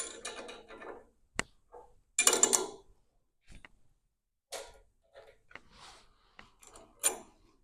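Clicks, clinks and short rattles of metal parts being handled as a lathe's intermediate shaft and its mounting bracket are fitted in place. The loudest clatter comes about two seconds in, followed by scattered small clicks.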